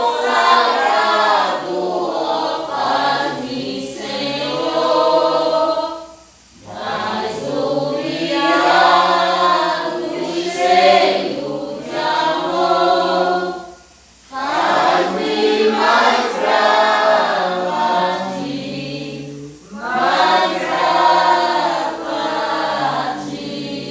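Several voices singing a Portuguese hymn together, in four long phrases with brief pauses between them.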